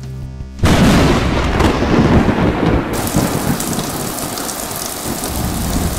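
A sudden thunderclap about half a second in, rumbling on over heavy rain. From about three seconds in the rain's hiss turns brighter and steadier.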